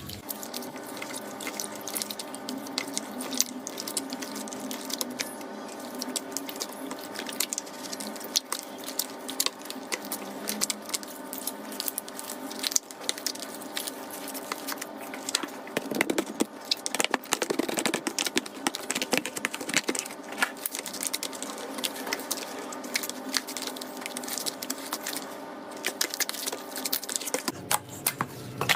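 Slime being squished, pressed and stretched by hand, with dense small clicks and crackles throughout.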